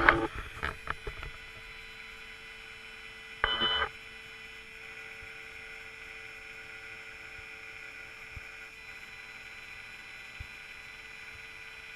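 Stepcraft 600 CNC router at rest: a few clicks in the first second, then a steady faint electrical hum with a single tone, and a brief half-second whirring beep about three and a half seconds in.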